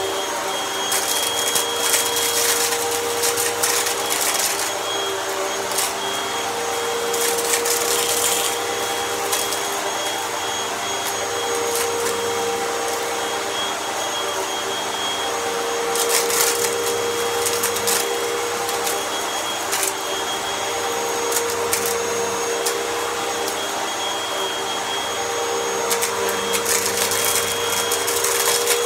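Vacuum cleaner running steadily with a motor hum and a high whine, with bursts of crunchy crackling as small debris is sucked up, several times.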